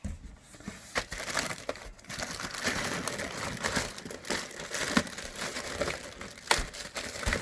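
Subwoofer packaging being pulled open, crinkling and crunching, with a few sharp clicks and knocks.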